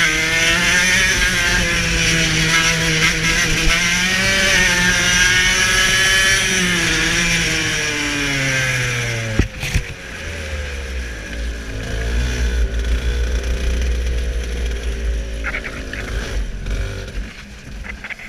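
Kart's two-stroke engine running hard, its pitch falling and rising as it slows and picks up through corners. About nine seconds in the revs drop suddenly to a low, steady idle as the kart slows to a crawl and pulls into the pits.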